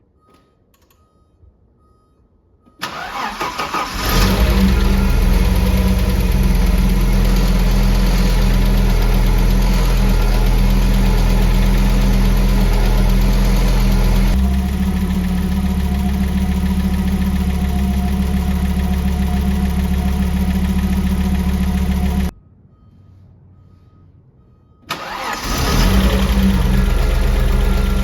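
Audi 3B 2.2-litre turbocharged five-cylinder engine cranked and started about three seconds in, then idling steadily with a tick that the owner puts down to the hydraulic lifters. The idle settles at about fourteen seconds. The engine is switched off a few seconds before the end, then cranked and started again.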